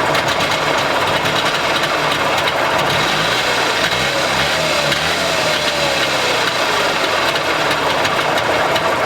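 Trabant 601's two-cylinder two-stroke engine idling at standstill with a steady, rattly running note. A thin whine falls slowly in pitch around the middle.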